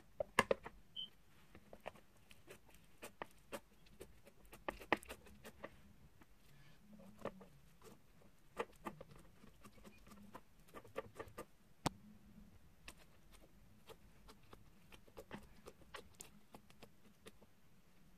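Small, scattered clicks and crackles of foam-bead slime (floam) being pressed and squished into a clear plastic compartment box, with sharper plastic clicks from the box lid being handled just after the start.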